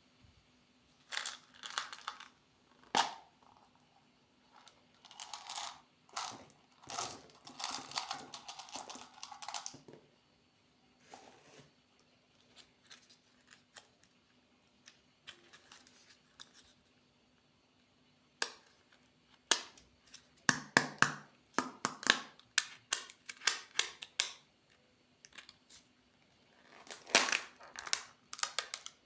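Candy packaging being handled and opened: irregular crinkling and tearing of plastic wrappers and sharp plastic clicks, in short bursts with quiet pauses between.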